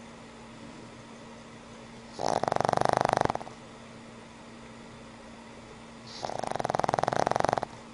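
Pug snoring in its sleep: two long, fluttering snores about four seconds apart, the first about two seconds in.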